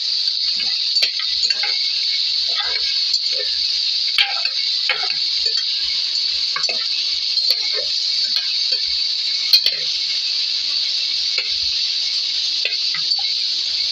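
A spatula stirring pork pieces with onion and garlic in a metal pot, scraping and knocking against the pot in short, irregular strokes over a steady sizzling hiss.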